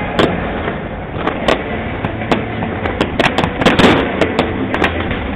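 Fireworks display: shells bursting in a rapid, uneven string of sharp bangs and cracks over a steady rumble, thickest about three to four seconds in.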